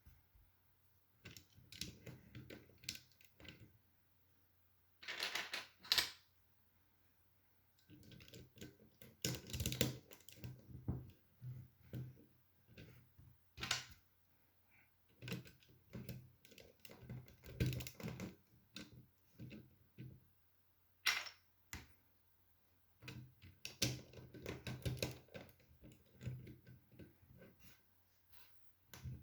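Plastic Lego bricks clicking and rattling as they are handled and pressed together: irregular flurries of small clicks with a few sharper, louder clicks.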